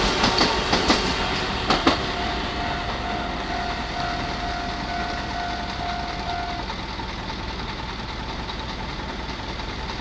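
A Keikyu electric train's wheels clattering over the rail joints as it runs away from the crossing, with a last few clicks about two seconds in. After that a steady rumble remains, with a thin held tone for a few seconds.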